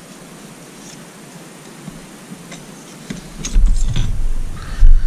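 Hand handling of small metal tools at a workbench: a few faint light clicks, then from about three and a half seconds in loud low knocks and rumbling as a metal tool is picked up and set against the parts.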